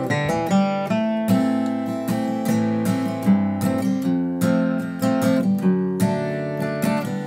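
Acoustic guitar strumming a chord accompaniment in G major, with short single-note connecting licks on the open strings between the chords.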